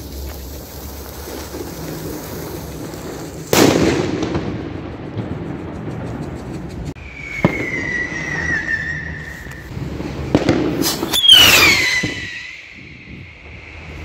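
Fireworks going off: a sudden bang about three and a half seconds in, then two shrill firework whistles, each dropping a little in pitch and holding for two to three seconds. The second whistle is the loudest and starts right after a crack.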